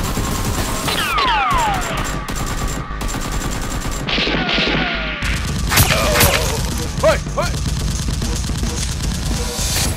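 Dubbed-in gunfire sound effects: rapid strings of shots, with whizzing ricochets falling in pitch a second or two in and a few louder single cracks later on.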